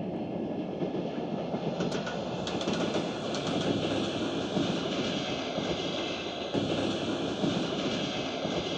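Steady rumbling noise of a vehicle in motion, with a few faint clicks about two to four seconds in.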